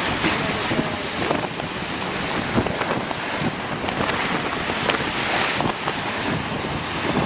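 Large Black Sea waves breaking, with strong wind buffeting the microphone.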